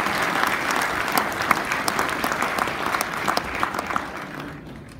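Audience applauding, a dense patter of many hands clapping that tapers off about four seconds in.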